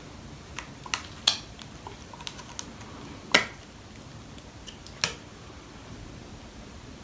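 A scattering of sharp clicks and taps from objects being handled at close range, irregularly spaced, the loudest about three and a half seconds in.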